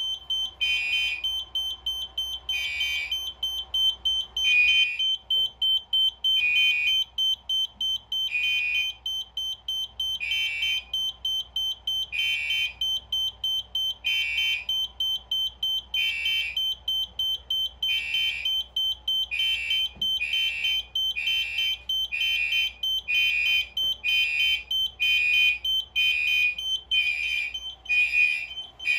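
Fire alarm notification sounding over a steady high-pitched electronic tone. Its pulsed horn tone repeats about every two seconds, then speeds up to about once a second roughly two-thirds of the way through. This faster cadence is typical of a fire suppression releasing panel going from first alarm into pre-discharge.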